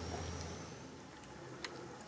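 Cats eating wet food from a plastic tray: faint chewing ticks and one sharp click a little past halfway, over a low background rumble that fades in the first second.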